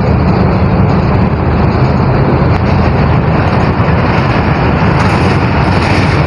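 Pakistan Railways diesel-electric locomotive hauling a passenger train as it approaches, its engine running as a loud, steady, deep drone.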